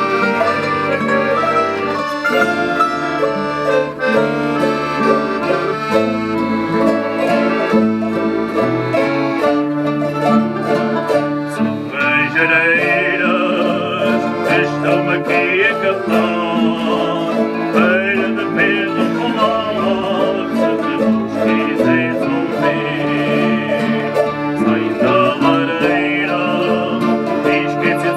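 Instrumental interlude of a Portuguese Janeiras folk group: mandolins and acoustic guitars strumming in a steady rhythm over an accordion.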